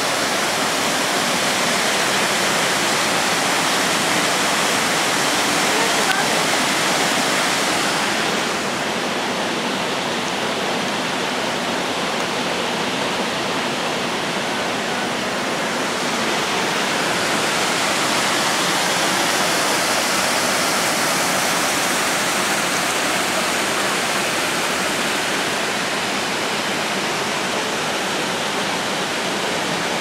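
Waterfall and river water rushing, a steady dense roar. The highest part of the hiss dulls for several seconds about a third of the way in, then returns.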